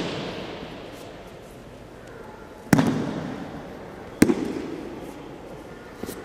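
Aikido breakfalls on tatami mats: thrown partners' bodies and slapping arms hit the mat in two loud, sharp impacts about a second and a half apart, each trailing off in the echo of a large hall. A weaker knock comes near the end.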